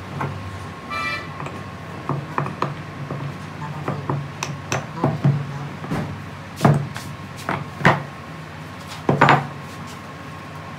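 Irregular knocks and clanks of metal engine parts and tools being handled in a truck-engine workshop, over a steady low hum. The knocks come unevenly, about a dozen of them, and the sharpest three are in the last few seconds.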